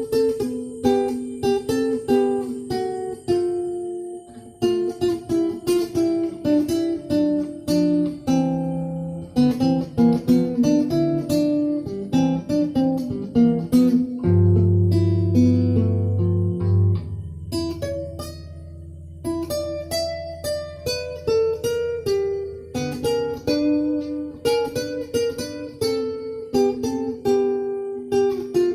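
Acoustic guitar played solo: a plucked melody over bass notes, with a held low chord about two-thirds of the way through.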